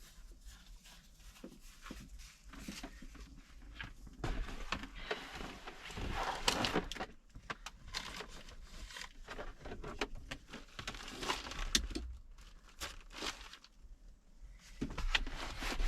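A portable camping fridge being picked up, carried and set down: irregular bumps, scuffs and rustling, busiest about four to seven seconds in.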